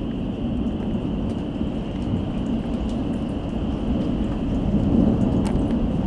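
Heavy rain pouring in a severe thunderstorm, with scattered sharp ticks of drops and a deep rumble that slowly grows louder.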